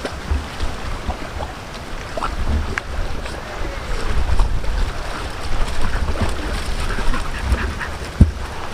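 Wind buffeting the microphone in uneven gusts over water sloshing and lapping, with a few small knocks and splashes.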